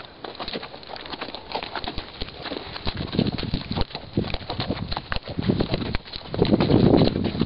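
Horse's hooves clopping on stony desert ground in an irregular run of sharp steps, with a louder low rumble near the end.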